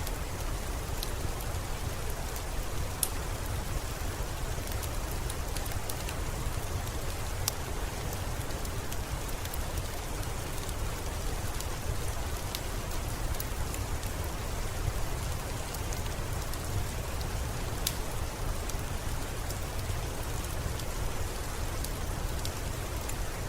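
Steady rain with a low rumble underneath and scattered sharp pops of a crackling wood fire.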